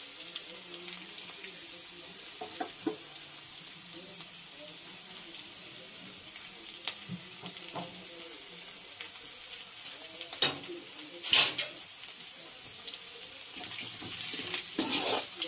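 Chopped garlic, curry leaves and whole spices sizzling in hot oil in a kadhai, a steady frying hiss. A few sharp clicks break through, the loudest about eleven seconds in, and near the end a metal ladle scrapes and stirs in the pan.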